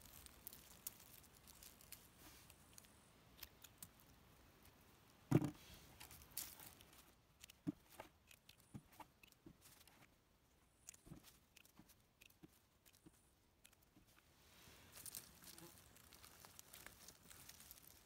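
Quiet handling sounds of chanterelles being picked by hand: light rustling of leaf litter and pine needles and small snaps and clicks, with one louder thump about five seconds in.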